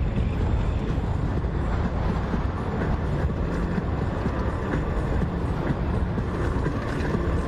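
Steady low rumble of a vehicle in motion, with no sudden events.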